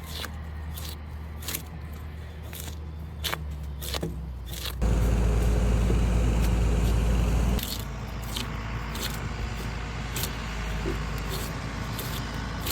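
Hand tools working wood on logs and timbers: a series of short, sharp scraping strokes, about one to two a second, over a low steady hum. A little under five seconds in, a louder steady power tool runs for about three seconds, then the scraping strokes resume.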